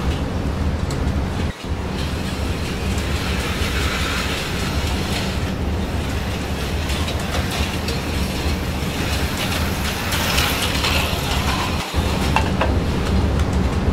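HO-scale model passenger train running past on its track: a steady rumble of small metal wheels rolling over the rails. The sound drops out briefly twice, about a second and a half in and again near the end.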